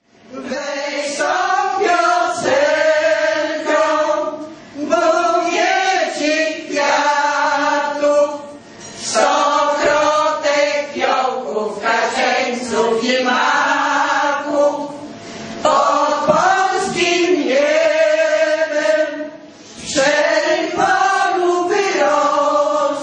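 Amateur women's vocal ensemble singing a song together, in phrases separated by short pauses.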